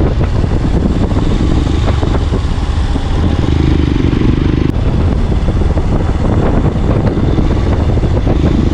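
Motorcycle engine running steadily under way at road speed, with wind rushing over the microphone.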